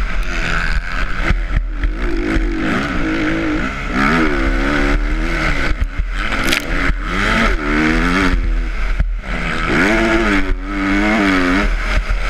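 Motocross dirt bike engine revving up and dropping back again and again as the rider accelerates and shifts, with wind buffeting the microphone throughout.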